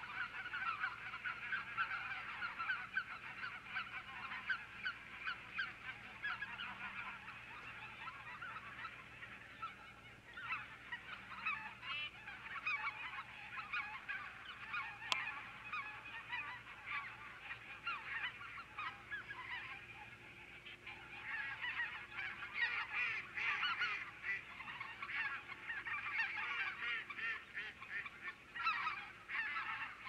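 A large flock of geese calling together, many overlapping honking calls at once, swelling again in the second half. A single sharp click comes about halfway through.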